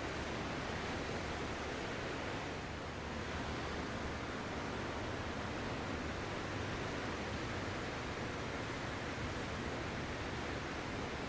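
Ocean surf washing continuously, a steady hiss with little rise and fall.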